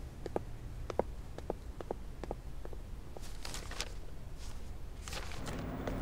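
Footsteps of hard-soled shoes on a hard floor, about two steps a second, walking away and fading out. Near the end a steady low electrical hum comes in.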